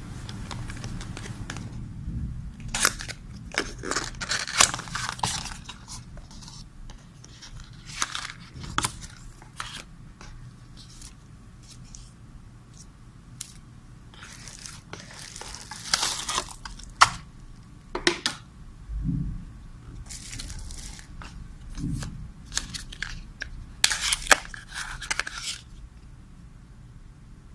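Unboxing noises: a cardboard box and bubble wrap being handled, with irregular crinkling, rustling and light taps as the packaging is opened and the parts are pulled out. A faint steady low hum runs underneath.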